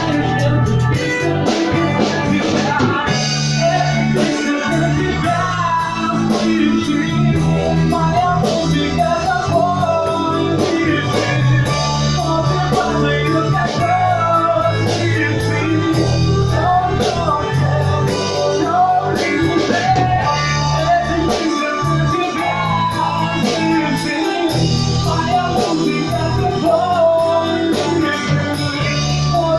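Rock music from a band, with guitars, bass and drums keeping a steady beat.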